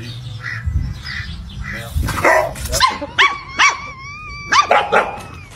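A dog yipping: a quick run of about half a dozen short, high barks in the second half, after a stretch of softer scuffling noise.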